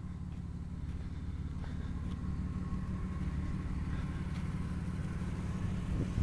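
Pickup truck engine idling steadily, a low even rumble.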